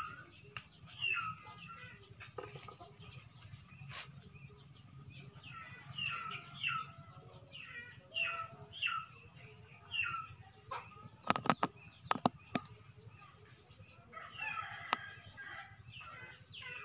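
Chickens clucking and calling at intervals, with a few sharp clicks, one about four seconds in and a quick cluster around two-thirds of the way through.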